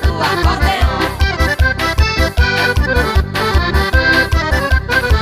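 Forró instrumental intro: accordion playing the melody over a steady bass drum beat, before the singing begins.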